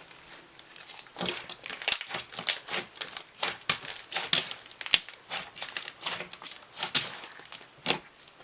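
Foam bead slime being squeezed and stretched by hand, with irregular crackling and popping clicks from the beads and air pockets, starting about a second in.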